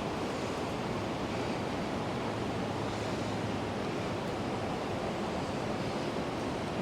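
Steady rushing of a flood-swollen river running over shoals, an even unbroken wash of water noise.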